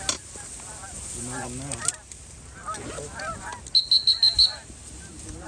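Canada geese honking, many calls overlapping. A little past the middle comes a quick run of about six shrill high peeps, louder than the geese, with a short sharp knock at the very start.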